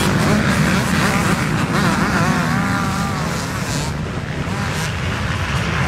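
A pack of motocross bikes racing past, many engines revving up and down together. The sound drops off a little after about four seconds as the bikes pull away.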